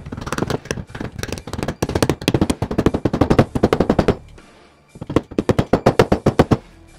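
Black rubber mallet tapping glued wooden inlay pieces down into their routed pocket: two runs of rapid taps, several a second, with a short pause between them about four and a half seconds in.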